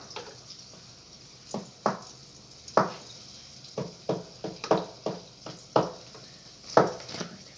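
Egg frying in a pan of hot oil: a steady sizzle, with about a dozen sharp pops and clicks at irregular intervals.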